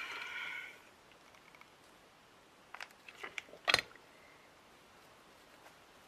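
Handling sounds at a craft table: a click with a short high tone at the start, then a few light clicks and a sharper knock about three and a half seconds in, as a hot glue gun is handled and set back in its stand. Quiet room tone otherwise.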